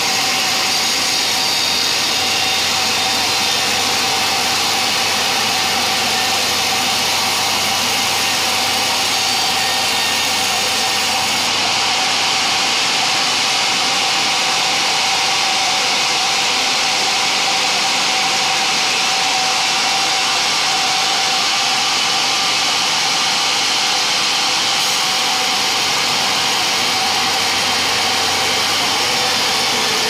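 Sawmill band saw running steadily as its blade rips lengthwise through a johar log: a continuous loud machine noise with a constant whine over hiss.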